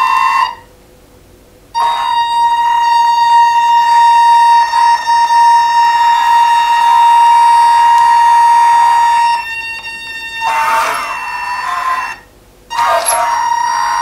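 High, steady whine of a 1:14 RC hydraulic skid steer loader's electric motors as it drives, cutting out twice and wavering in pitch near the end.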